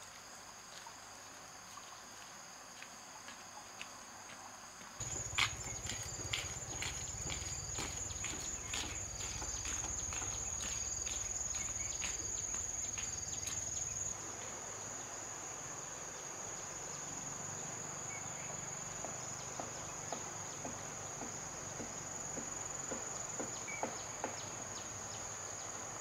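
Insects shrilling steadily at one high pitch. From about five to fourteen seconds in there is also a run of light clicks and knocks over a low rumble.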